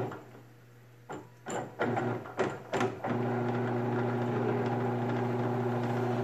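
Harbor Freight 10-inch bench drill press motor cutting out, then stuttering back on in short bursts with clicks, then running steadily with a quiet hum from about three seconds in. The stuttering is the sign of a faulty power cord, which the owner blames.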